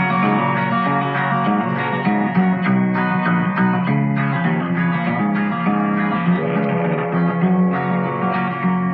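Instrumental break of an old-time country song: a guitar picks the melody on its low strings, with strummed chords between the melody notes.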